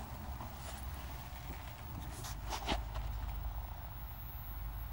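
Low steady hum of a 1950s vacuum-tube television set warming up after power-on, with a few light clicks and knocks about two and a half seconds in. A thin, very high whine comes in near the end.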